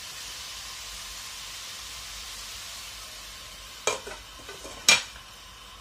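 Steady hiss of water boiling under the lid of a pan steaming a plate of beancurd mixture. Two sharp clicks about a second apart come a little past the middle, the second the louder.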